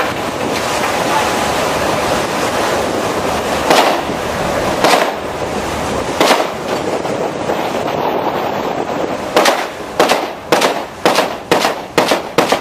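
Steady wind and sea noise at sea, then, from about nine seconds in, a quick irregular run of sharp bangs, about eight of them.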